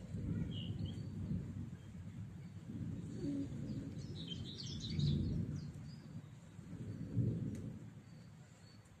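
Village ambience: a low rumble that swells twice and dies away near the end, with a short bird chirp about half a second in and a flurry of bird chirping around four to five seconds in.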